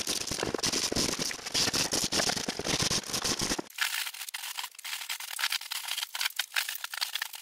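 Draw knife peeling bark off a walnut log: rapid, irregular scraping and crackling as the bark splits away. About halfway through the sound turns thinner.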